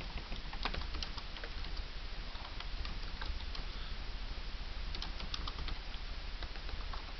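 Computer keyboard typing: irregular key clicks in short runs, over a steady low hum.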